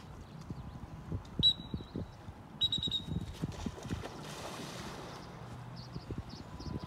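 Open-air pond ambience: light wind and water noise with scattered soft knocks, and two short high-pitched tones about one and a half and three seconds in.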